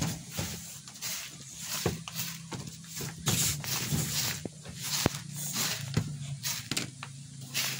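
Raw rice grains rustling and sliding on a woven bamboo tray as a hand spreads and picks through them: repeated short swishes with small clicks of the grains. A low steady hum runs underneath.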